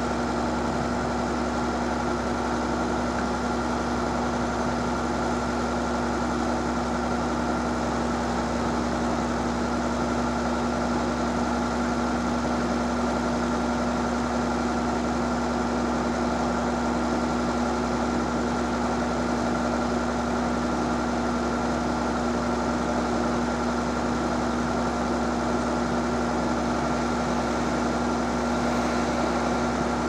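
Bulldozer diesel engine idling steadily at a constant pitch.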